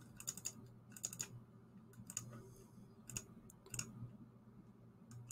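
Faint computer mouse button clicks, often in quick pairs as double-clicks, about once a second, over a faint low steady hum.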